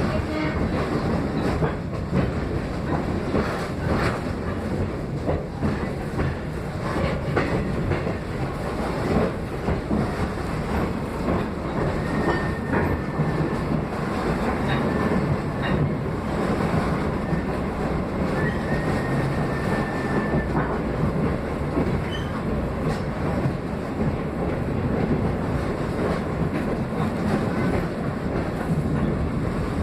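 Caboose train rolling along the track: a steady rumble with the clickety-clack of wheels over rail joints. Brief high wheel squeals come twice, around the middle.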